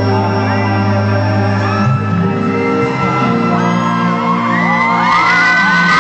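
Live pop music in a large hall, with long held synth chords over a steady bass. A little past halfway, a crowd of fans starts screaming and whooping in high, rising voices over the music.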